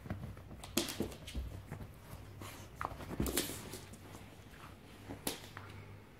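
A mini chihuahua and an American Staffordshire terrier scuffling over a stuffed toy: paws scrabbling on a sheet and floor, rustling and a few sharp knocks, with a short falling squeal near the middle.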